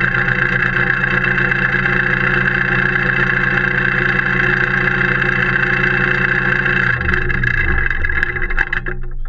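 Tractor engine running steadily. Its note shifts about seven seconds in and drops away near the end.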